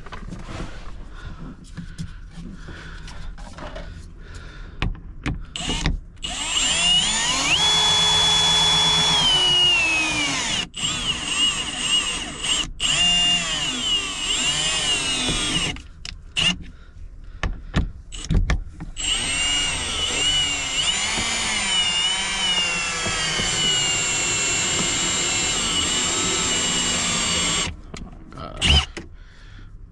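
Handheld power tool running in three long spells with short stops between, its whine holding steady at times and wavering up and down in pitch at others, and dropping away as it winds down near the first stop.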